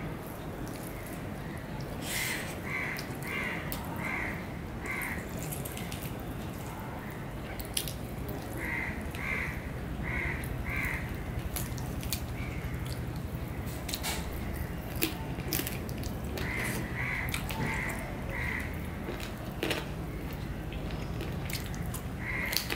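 Fingers mixing rice on a plate and soft eating sounds, with small clicks. Through this, a bird calls outside in short series of four or five calls about half a second apart, several times.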